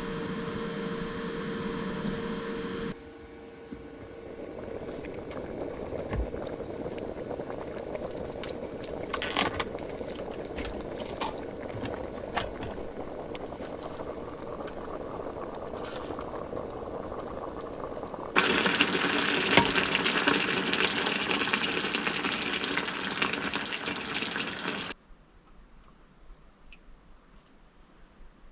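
Electric hot pot bubbling and simmering, with a steady hum and tone from the portable power station's cooling fan that stops about three seconds in. A louder hiss runs for several seconds later on and then cuts off suddenly.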